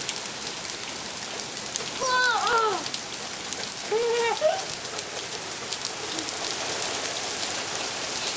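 Heavy rain pouring and pattering steadily on outdoor surfaces. A high-pitched voice calls out briefly twice, about two and four seconds in.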